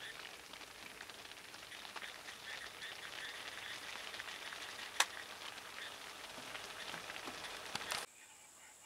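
Steady crackling outdoor hiss dotted with small ticks, with one sharp click about five seconds in. Near the end it cuts off abruptly to a quieter, steady high buzz.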